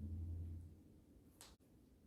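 A low drum note played back through B&W 802D3 loudspeakers rings out and fades away over the first half second or so, leaving a quiet room with one faint click about a second and a half in.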